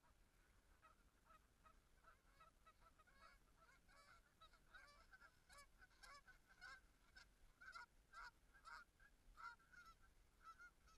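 Faint honking and clucking of Canada geese: many short calls in quick succession, becoming more frequent after the first few seconds.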